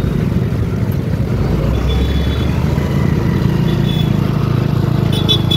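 Motorcycle engine running at low speed while riding, a steady low rumble.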